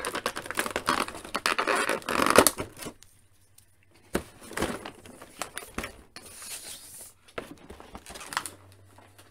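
Clear plastic blister tray crinkling and crackling as an action figure is pulled out of it, densest and loudest for the first three seconds, then scattered lighter clicks and scrapes of handling.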